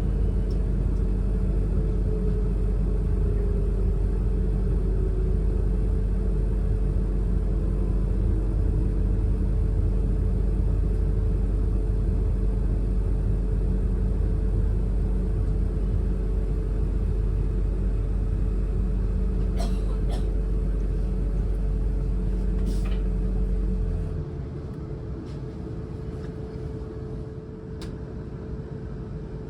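Inside a Siemens Class 444 Desiro electric multiple unit standing at a platform: a steady low hum of onboard auxiliary equipment under a constant whine. Most of the way through, the low hum cuts out suddenly, leaving a quieter background with a few faint clicks.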